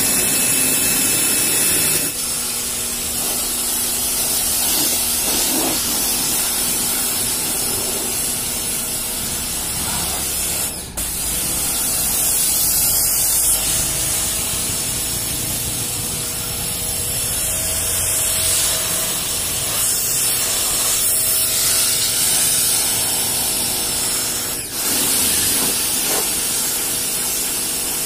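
Pioneer P2 electric pressure washer (1600 W, 110 bar) running, its high-pressure jet spraying water onto a car's paintwork and windows: a steady hiss of spray over a steady hum, with short dips about 11 and 25 seconds in.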